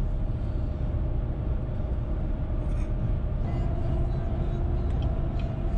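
Steady road noise of a car driving at highway speed, heard from inside the cabin: a continuous low tyre-and-engine rumble with a faint steady whine above it.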